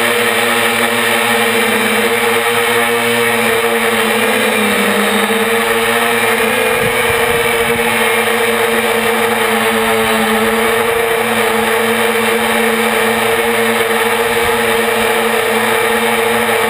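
Electric motors and propellers of a 450-size quadcopter running steadily as it hovers, heard up close from the camera mounted on the craft itself. The pitch dips briefly about five seconds in.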